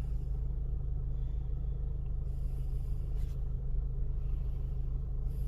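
2009 Chevy Cobalt's four-cylinder engine idling steadily, running smoothly with no misfire after new coil packs. A faint click about three seconds in.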